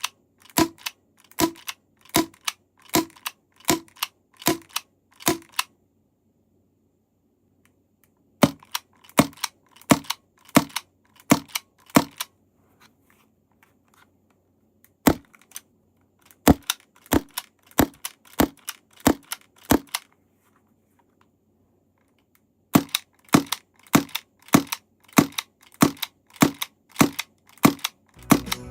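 Marzen M93R gas airsoft pistol firing single shots, about one and a half a second, in four strings with short pauses between them.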